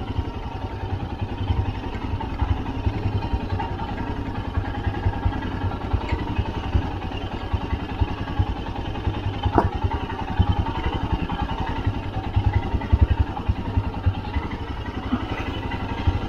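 Motorcycle running at low speed down a steep, rough mountain road, with a dense, flickering low rumble.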